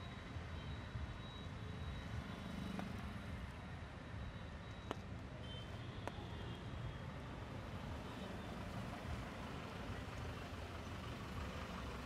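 Road traffic passing on a wet road: a steady run of engine and tyre noise, with two sharp clicks a couple of seconds apart.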